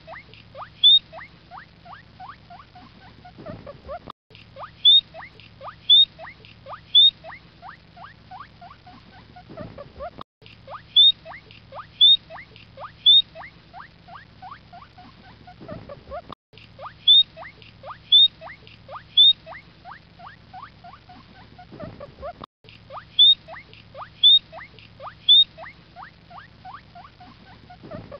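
Guinea pig squeaking: one short recording plays over and over, repeating about every six seconds. Each time there are three loud, high squeaks about a second apart, then a run of quieter falling squeaks at about three a second, and a brief gap before the next repeat.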